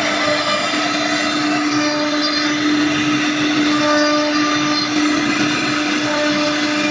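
CNC router spindle running steadily while routing a wooden door or drawer panel: a constant high motor whine over a cutting hiss.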